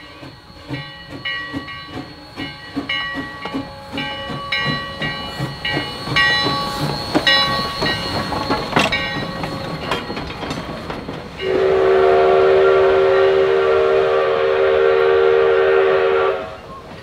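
Steam locomotive No. 3 under way, its bell ringing about twice a second over the low chuff of its exhaust. About two-thirds of the way in comes one long, loud blast on its steam whistle, a steady chord lasting about five seconds.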